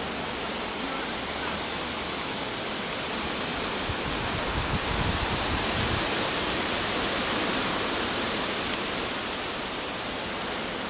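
Steady rushing hiss with no distinct events, and a low rumble about four to six seconds in.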